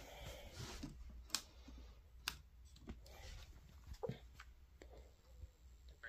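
Faint clicks and rustling of a handheld portable radio being handled and fumbled with, with two sharper clicks about a second and a half and two seconds in.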